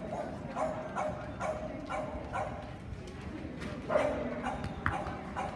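A dog barking over and over, about two short barks a second, with one louder bark about four seconds in.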